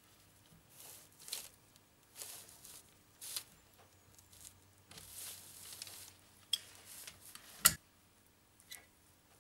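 Seam sealer being squeezed from a cartridge gun into a car floor-pan seam: short hissy, squelching spurts about every second, with two sharp clicks in the second half, the loudest near the end.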